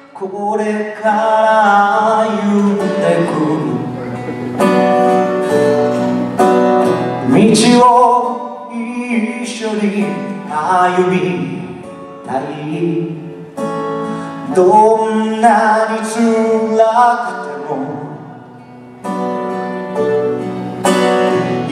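A man singing a song live into a microphone, accompanying himself on a strummed acoustic guitar; the voice carries the melody in phrases with short breaks between them.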